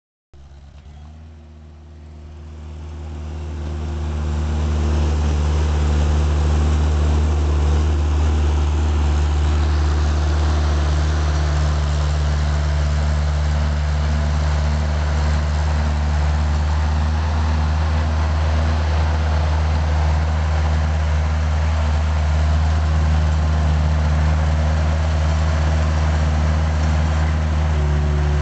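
Skid steer loader's engine running steadily with a low, even drone. It grows louder over the first few seconds, then holds steady.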